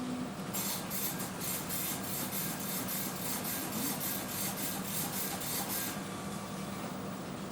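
A laboratory machine running with a rapid, even series of hissy mechanical strokes, about four to five a second, much like a printer's print head at work. It starts about half a second in and stops about six seconds in, over a steady low hum of laboratory equipment.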